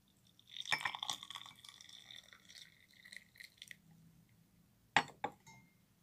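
Hot water poured from a small copper pot into a glass mug for about three seconds, with ginger pieces sliding in with it. Two sharp clinks follow near the end.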